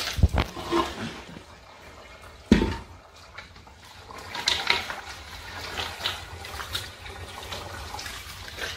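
Pounded, cooked oil-palm fruit pulp in water is poured into a metal basin and then squeezed and sloshed by hand, wet squelching as the fibres are wrung out to release the palm oil in a first straining. There are a couple of knocks at the start and a thump about two and a half seconds in.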